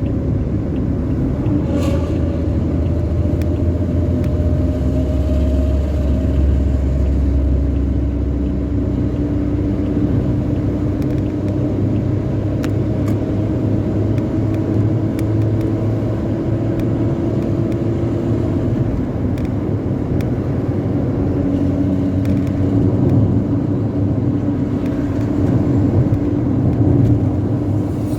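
Bus engine with a 'ngorok' (snoring) aftermarket exhaust running at speed: a continuous low rumble whose pitch climbs slowly, then falls back about two-thirds of the way through.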